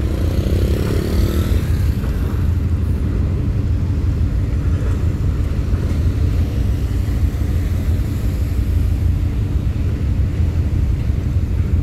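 Heavy diesel engines running with a steady, unchanging low hum.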